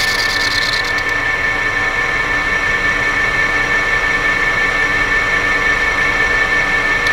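Metal lathe running with a steady whine, its spindle turning a WH1C turbo part while a boring bar machines the bore in stepped passes. A higher hiss drops away about a second in.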